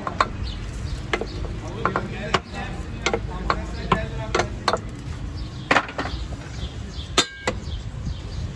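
Knife chopping doner kebab meat on a cutting board: irregular sharp knocks and clinks, one or two a second, over a steady low rumble. A short metallic ring sounds near the end.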